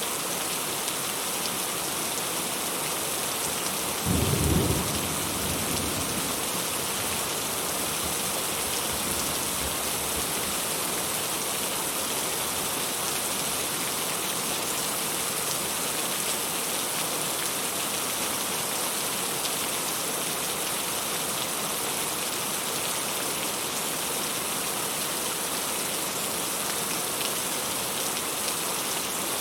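Steady heavy rain falling, with one low rumble of thunder about four seconds in that dies away over several seconds.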